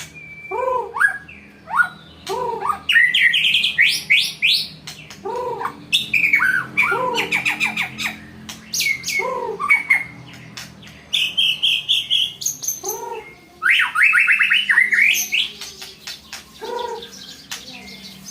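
White-rumped shama singing a challenge song: fast high trills and rattles, broken by a lower arched note repeated every second or two.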